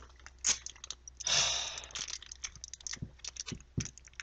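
Wax paper crinkling and tearing as it is peeled off a sticky homemade candy bar that it has stuck to: a run of small crackles, with one longer rustling tear about a second in and a few soft knocks near the end.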